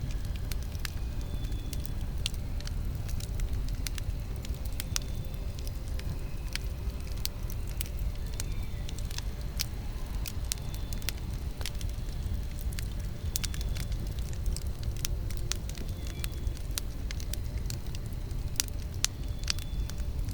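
Wood campfire burning, with a steady low rumble of flame and irregular sharp crackles and pops of burning wood.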